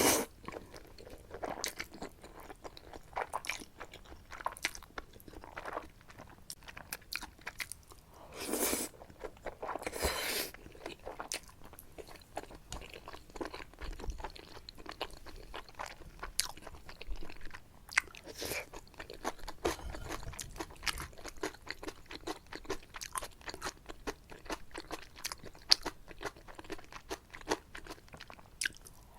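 Close-miked eating of jajangmyeon with shrimp and squid: steady wet chewing and mouth clicks, with two longer slurps of noodles about nine and ten seconds in.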